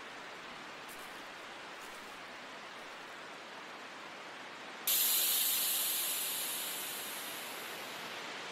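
A steady background hiss, then about five seconds in a sudden loud, high hiss that starts abruptly and fades away over about three seconds.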